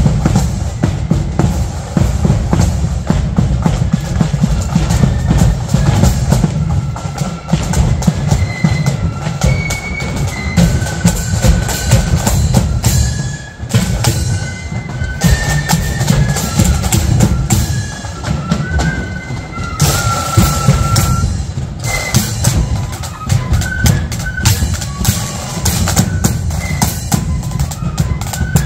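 Marching flute band playing a tune: a high flute melody over rattling side drums and a steady bass drum.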